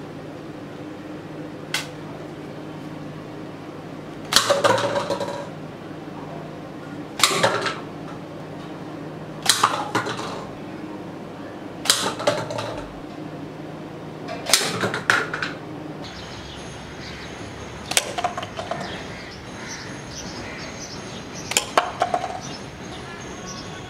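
A series of sharp snapping clacks, each followed by a brief rattle, about one every two to three seconds.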